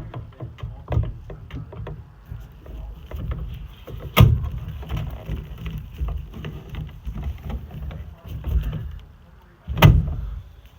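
Scattered clicks, knocks and handling noise from hands working on furnace parts during an ignition-module swap, over a low rumble. There are two sharp, loud knocks, one about four seconds in and one near the end.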